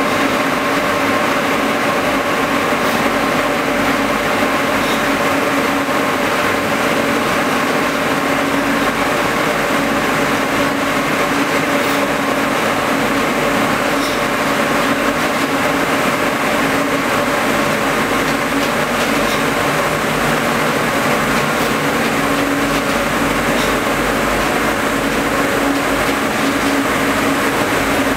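LMW LR60/AX ring spinning frames fitted with H-Fang compact spinning units, running in production: a steady mill drone with a few constant hum tones and no change in pace.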